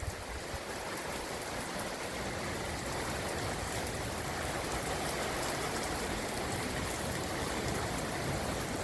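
Heavy downpour falling steadily, with water gushing from an overflowing gutter, growing slightly louder.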